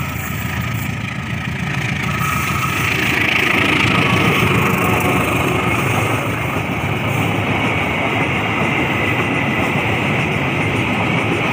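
Freight train of ballast hopper wagons hauled by a CC 203 diesel-electric locomotive passing close by: the locomotive's engine grows louder as it comes up and passes in the first few seconds, then a steady rolling rumble of the hopper wagons' wheels on the rails.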